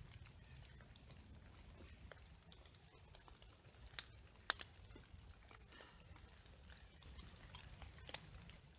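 Scattered raindrops and drips tapping irregularly, a sharp tick now and then, the loudest about halfway through, over a faint low rumble.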